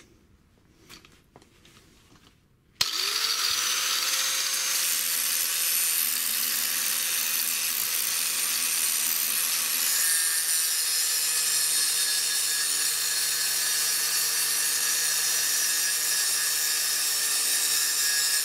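An angle grinder starts up about three seconds in and runs steadily with its abrasive disc grinding into steel. It is cutting the lip off the cheek of a Vespa 200cc crankshaft so the crank will fit a 125cc engine case.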